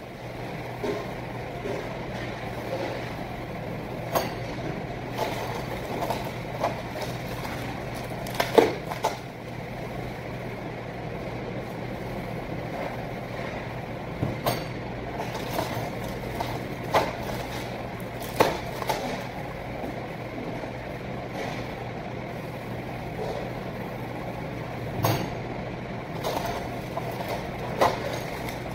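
Apples being hand-wrapped in plastic cling film at a stainless steel film dispenser: sharp clicks, knocks and snaps every few seconds as film is pulled and cut and fruit is handled. A steady low hum runs underneath.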